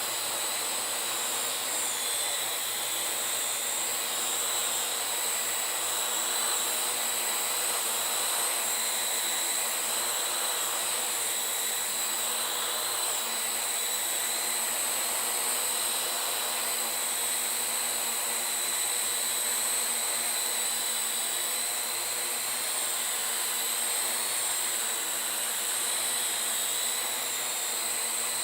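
Parrot AR.Drone 2.0 quadcopter's four electric motors and propellers whirring steadily in flight, with a high, even whine.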